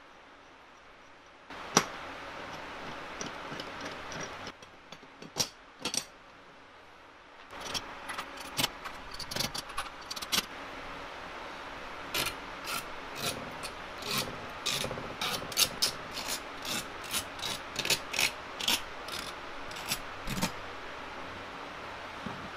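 Steel parts of a laser-cut lathe steady rest being handled and fitted together by hand: small blocks, bolts and plates clinking, knocking and sliding against each other. After a quiet first second or so there is a sharp clack, then scattered knocks, then a dense run of quick metallic clicks over the second half.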